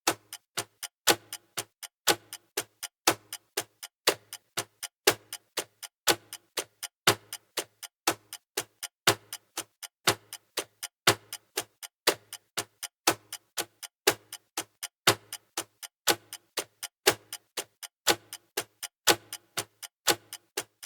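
Clock ticking steadily, a louder tick about once a second with several fainter ticks between.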